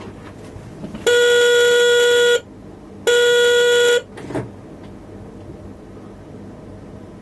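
A loud warning signal in the cab of an X31 Öresundståg electric train: two long blasts of one steady tone, the first about a second and a half, the second about a second, with a short knock just after. A steady low hum from the standing train runs underneath.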